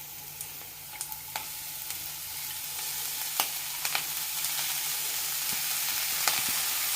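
Chopped chilli leaves and onion sizzling in hot coconut oil in a pan, the sizzle growing steadily louder as the greens go in. They are stirred, with a few sharp clicks against the pan.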